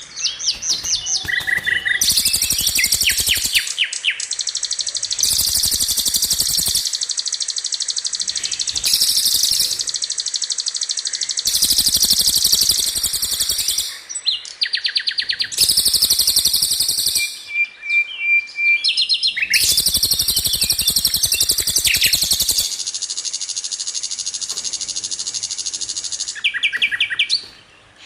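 Songbird song made of rapid-fire rolling trills: long, dense runs of fast repeated high notes lasting several seconds each, with short breaks between them, and a brief steady whistle in the middle.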